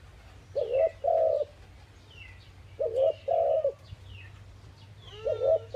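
Spotted dove cooing: three two-part coo phrases about two and a half seconds apart, each a short wavering note followed by a longer held note. Small birds chirp faintly in the background.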